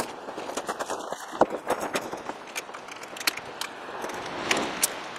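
Footsteps on gravel and scattered light knocks and clicks of hand tools being picked up and set down.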